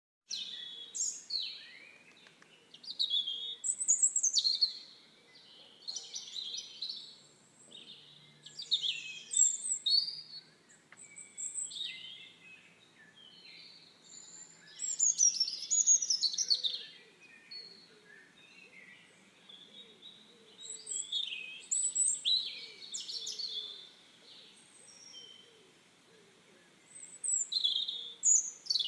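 Songbirds chirping and singing: short bursts of quick, high, warbling phrases every two to three seconds, with quieter gaps between.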